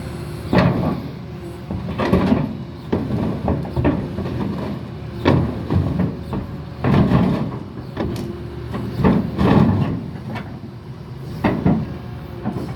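Doosan crawler excavator with one track's final drive dead, dragging itself along with its bucket: irregular heavy scrapes and clanks of steel, one every second or two, over the engine's steady running.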